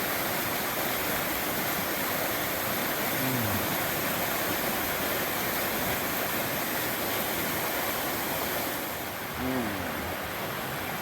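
River running high after heavy rain, rushing over rocks and boulders in a steady roar of water; it dips a little in level near the end.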